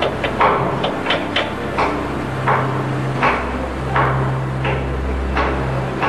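A hammer knocking irregularly, about one to two short blows a second, over a steady low hum.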